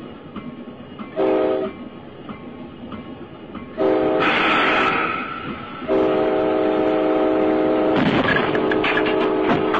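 Locomotive air horn sounding a chord: a short blast, a longer one about four seconds in, then a long held blast from about six seconds, over the running noise of the train. A burst of rattling clatter joins near the end.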